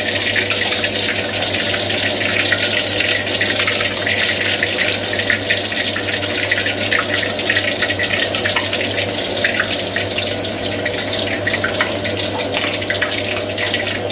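Food frying in hot oil in a wok, a steady sizzle with dense crackling. A steady low hum runs underneath.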